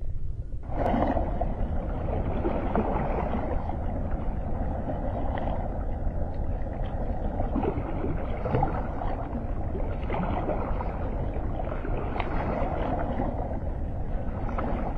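River water lapping and splashing against rocks at the bank: a steady wash with small irregular splashes, starting about a second in.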